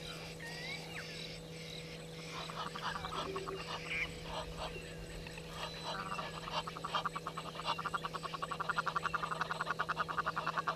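Egyptian geese calling: a rapid, steady-paced series of harsh honks starts about six seconds in and grows louder toward the end, after a few scattered short bird calls.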